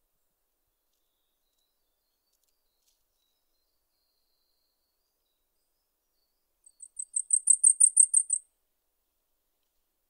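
A warbler sings once: a short, very high, thin series of rapid notes that swells in loudness and then fades, starting about two-thirds of the way in.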